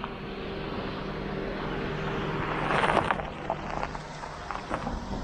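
Car driving slowly over a bumpy, rutted dirt road: a steady engine hum with road and tyre noise, swelling into a louder rush of noise about three seconds in.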